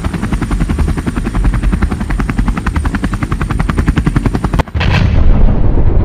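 Helicopter sound effect: fast, even rotor beats with a thin high turbine whine. About five seconds in it cuts off, and a sharp crack leads into a loud, deep explosion rumble.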